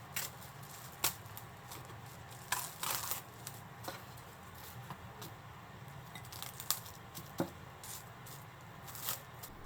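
Plastic wrap crinkling and tearing in short, scattered rustles as it is pulled off and pressed over a bowl.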